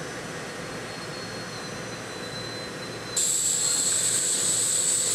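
SEPTA electric commuter train at the platform: a steady hum of its equipment with a faint high whine, then about three seconds in a sudden loud, high hiss that lasts about two seconds and cuts off.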